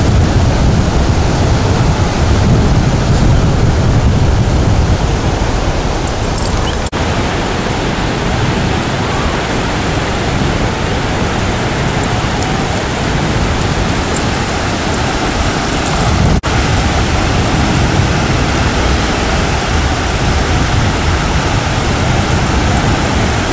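Loud, steady rushing noise of ocean surf and wind on the microphone, heaviest in the low end. It drops out briefly twice, about 7 and 16 seconds in.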